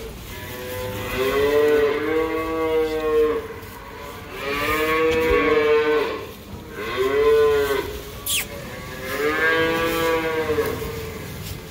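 Young cattle mooing, several long calls one after another with short pauses between. Each call rises and then falls in pitch.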